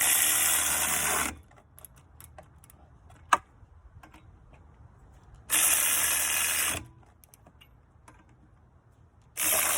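Power tool run in three short bursts of a little over a second each, with a single sharp click between the first and second.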